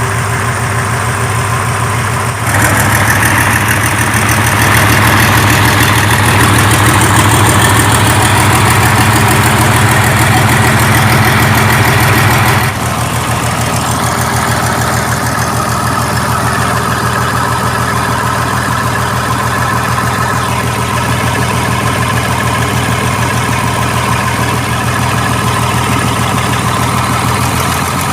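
Mitsubishi 6D14 six-cylinder diesel engine of a 75 kVA generator set running at a steady speed. It is abruptly louder for about ten seconds after the first couple of seconds, then settles back to the same steady level.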